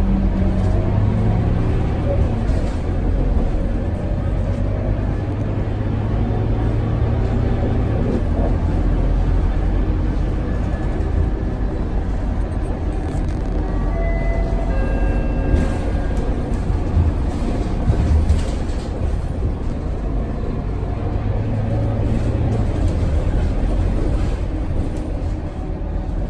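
Cabin noise of a Scania K230UB city bus on the move: its diesel engine and drivetrain hum with road noise, the low engine note swelling and easing as the bus pulls away and slows.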